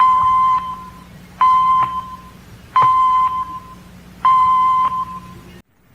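Radio network time-signal pips, the 'top de 5 segundos' countdown to a synchronised network cue. Four short beeps near 1 kHz come about a second and a half apart, each starting sharply and fading quickly.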